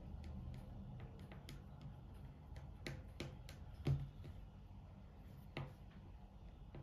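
Faint scattered ticks and taps of fingers on a tabletop while rolling a thin rope of plasticine, with a sharper knock about four seconds in and another lighter one near the end, over a low steady hum.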